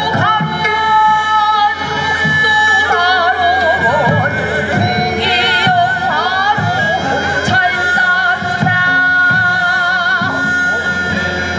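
Korean traditional ensemble music: long, wavering melodic lines with wide vibrato, played over a steady drum beat.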